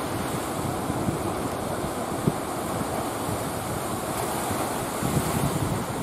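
Wind buffeting the microphone over the steady wash of rough sea and surf.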